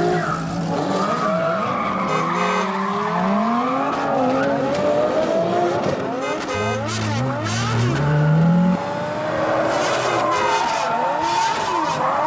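Race-car engine sound effects laid over the picture: several engines revving up and down at once in overlapping rising and falling pitch glides.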